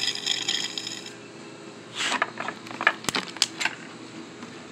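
A thin plastic water bottle being handled: a rustling hiss in the first second, then crinkling and a quick run of sharp clicks and taps from about two seconds in.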